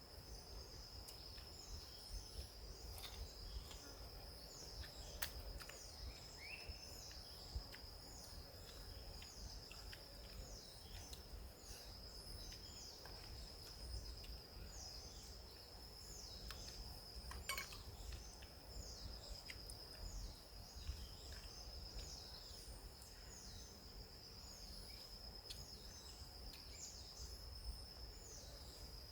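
Forest ambience: a steady high-pitched insect drone, with a short chirp repeating about once a second over it, and a low rumble underneath. A few faint clicks, the clearest about halfway through.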